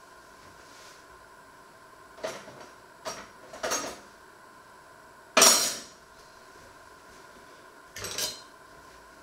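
Steel cutlery clinking as pieces are handled and set down on a wooden board, five separate clatters. The loudest comes a little past halfway and rings briefly.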